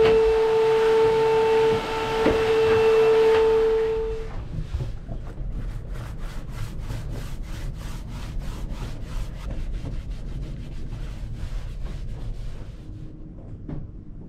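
Vacuum cleaner running with a steady whine, sucking sanding dust off plywood floorboards, then stopping about four seconds in. After that a paint roller is worked back and forth over the plywood in quick, even rubbing strokes, about four a second.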